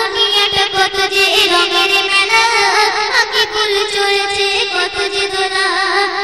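A girl singing a Bengali Islamic devotional song (gojol) into a microphone, her melody wavering and gliding over a steady held tone with a beat of percussion in the accompaniment.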